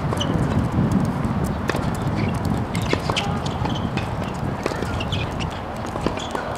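Scattered, irregular knocks of tennis balls being struck and bounced on outdoor hard courts, over a low wind rumble on the microphone that eases after the first couple of seconds.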